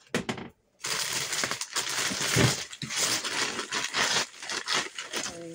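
Thin plastic bag crinkling and rustling as hands rummage through it, a few separate crackles and then a dense, continuous crinkle from about a second in.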